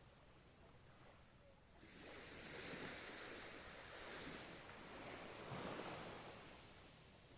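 Ocean waves washing in, faint: a wash of surf swells up about two seconds in and ebbs away near the end.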